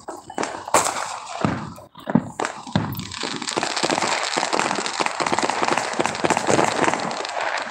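Fireworks and firecrackers going off: a few sharp bangs in the first two seconds or so, then a steady, dense crackle of many small pops.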